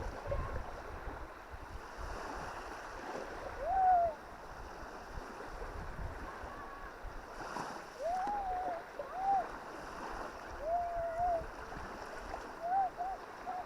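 Baltic Sea waves washing onto a sandy beach, with wind rumbling on the microphone. Several short calls that rise and fall in pitch sound over the surf, the loudest about four seconds in and a cluster from about eight seconds on.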